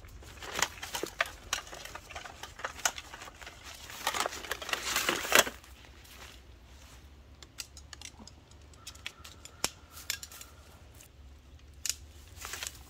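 Nylon stuff sack rustling and scraping as a folding backpacking table is pulled out, then scattered clicks and clatter of the table's folding leg poles being unfolded and fitted together.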